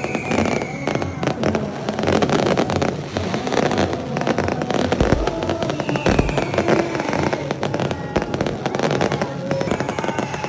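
Fireworks going off in a dense, continuous run of cracks and bangs. Whistling shells fall in pitch early on and again about six seconds in.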